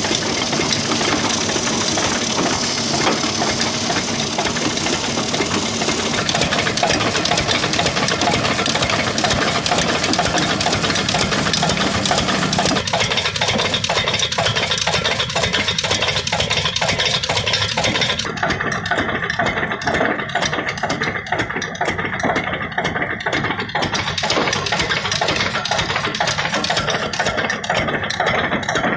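Lathe running with a steady mechanical drone. About 13 seconds in it takes on a fast, even pulsing, and about 18 seconds in the high hiss drops away.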